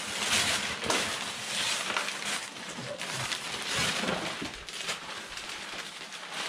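Wrapping paper rustling as it is pulled off a boxed toy.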